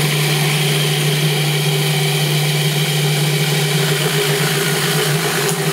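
Food processor motor running steadily with a low hum, blending pesto as olive oil is drizzled in through the feed tube.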